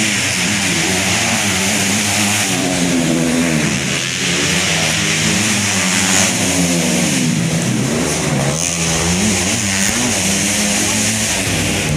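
Several motocross motorcycles racing, their engines revving up and down over one another as riders accelerate and back off around the track.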